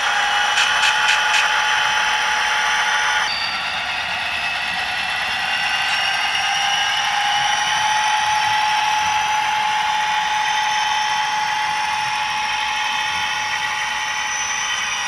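Sound-equipped model diesel locomotive running, its Soundtraxx Tsunami decoder playing a diesel engine sound through the onboard speaker, mixed with a steady motor and gear whine. The whine rises a little in pitch about halfway through, and a few quick clicks come about a second in.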